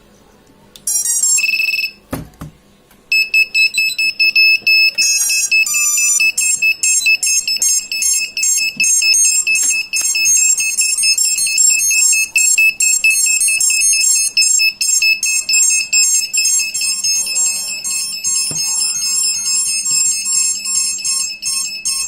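Brushless FPV motor beeping under a HAKRC BLHeli_32 35A ESC. A short run of stepped tones about a second in is followed by a knock, then continuous rapid high-pitched beeping that does not stop. The title presents this as the ESC failing.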